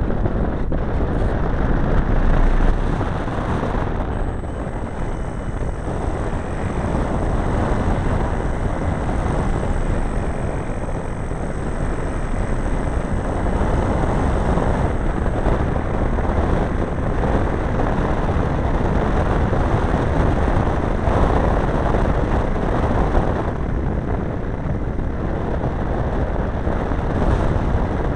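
Engine and propeller of a large RC Quaker model airplane running steadily in flight, heard from a camera riding on the plane and mixed with heavy wind rush. It eases off slightly for a few seconds about four seconds in.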